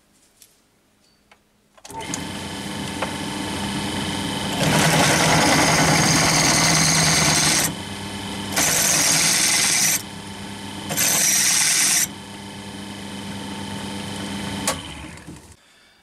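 Bench drill press motor starting about two seconds in and running steadily, with an 8 mm twist drill cutting a shallow step into a metal part; the cutting grows louder and harsher in three spells as the bit is fed down. The sound cuts off near the end.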